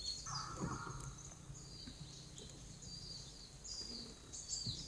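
Faint bird chirps and calls scattered through quiet outdoor ambience, over a low steady hum.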